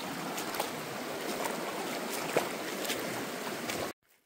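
A shallow mountain creek running over rocks: a steady rush of water with small splashes. It cuts off abruptly just before the end.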